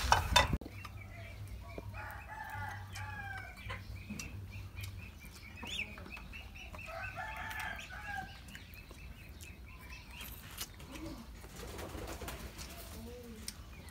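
Domestic chickens clucking now and then, after a short loud noise right at the start.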